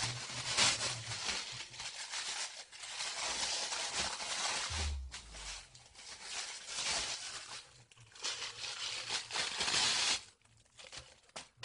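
Rustling and crinkling handling noise as a rubber Boglin puppet is moved about close to the microphone, with a dull low thump about five seconds in. The noise dies down about ten seconds in.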